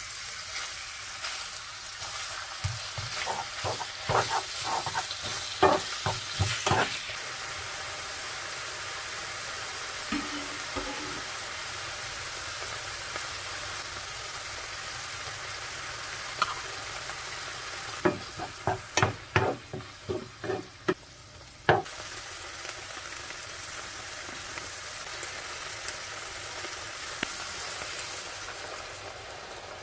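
Minced meat and chopped onion sizzling in a non-stick frying pan, with a steady hiss. A wooden spatula scrapes and knocks against the pan in two bouts of stirring.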